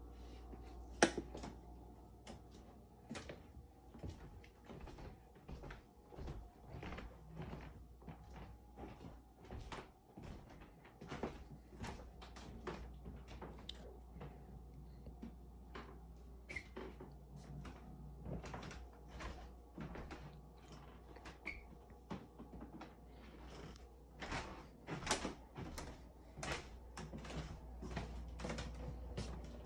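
Footsteps and light knocks on hard floors, about one to two a second, over a low steady hum; a sharper knock about a second in.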